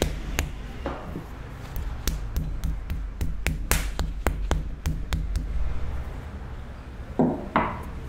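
Wooden paddle tapping and beating a block of clay to firm and square it, a quick irregular series of sharp taps. About seven seconds in, two louder slaps as hands strike the clay.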